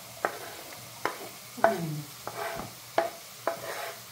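A spoon stirring leeks and chard stems frying in oil in a pot. It knocks against the pot about six times, each knock with a short ring, over a soft sizzle.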